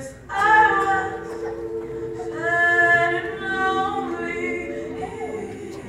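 Youth gospel chorus singing held chords in several voices. The voices come in about a third of a second in and swell again a little past two seconds in.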